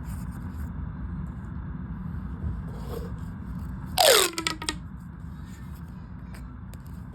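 Plastic sensory pop tubes being handled, their ridged sections rustling faintly. About four seconds in comes one loud burst of rapid popping clicks as a tube is pulled or squashed, with a squeaky tone that falls sharply in pitch.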